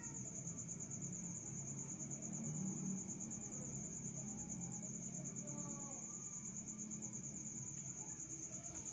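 An insect trilling steadily at a high pitch in a fine, even pulse, over a faint low background rumble.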